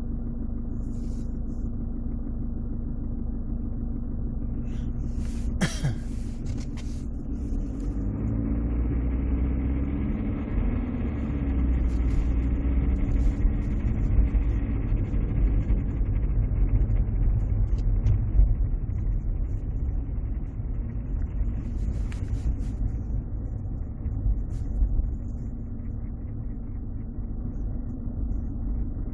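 Mercedes-Benz W203 C200 CDI four-cylinder diesel running, first at idle, then revved up from about eight seconds in and held for roughly ten seconds before dropping back. At the higher revs a strange noise from the 722.6 automatic gearbox's selector area is the owner's concern, a noise that appears above about 2000 rpm, its cause unknown.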